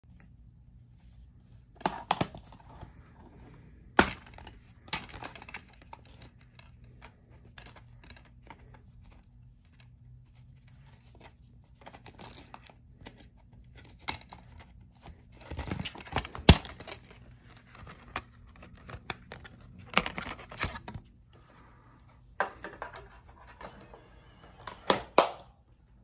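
A plastic DVD case being handled and opened, and the disc pressed off its centre hub: irregular clicks, snaps and rustles, the sharpest about 4 seconds in and midway through.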